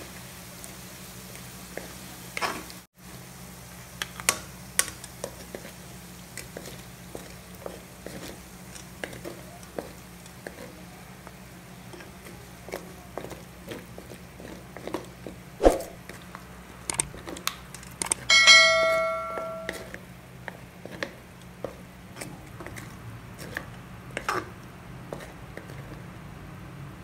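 Diced potatoes being scooped out of hot oil in a wok with a wire-mesh strainer and wooden spatula: scattered clicks and knocks of the utensils against the pan, over a steady background of frying. About two-thirds of the way through, a metal strike rings like a bell for about a second and a half.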